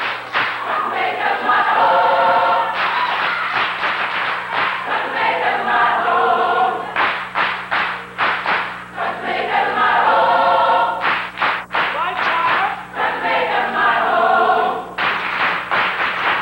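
High school gospel choir singing in short phrases that alternate with stretches of rhythmic percussive beats. A steady low electrical hum runs underneath.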